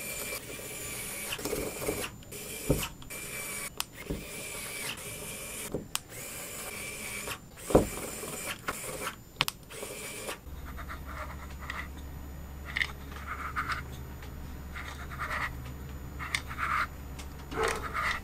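Pen-style mini electric screwdriver driving the small screws of a miniature engine's metal cover, running in short spells with brief pauses between. About ten seconds in it stops, leaving a low steady hum and scattered light clicks of small metal parts being handled.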